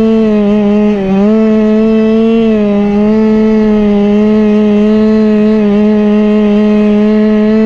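Go-Ped scooter's small two-stroke engine running at steady high revs while riding, its pitch dipping briefly about a second in and again near the three-second mark. The rider suspects it is overfueling.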